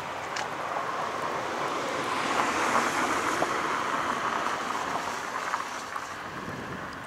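Sea waves surging: a rushing hiss with no tones that swells to its loudest about two to three seconds in and then eases off.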